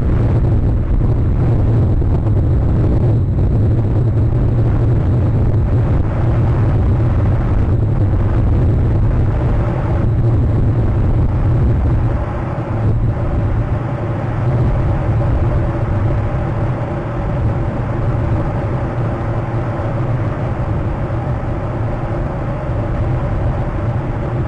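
Wind buffeting an outdoor camera microphone: a loud, steady low rumble that eases a little about halfway through.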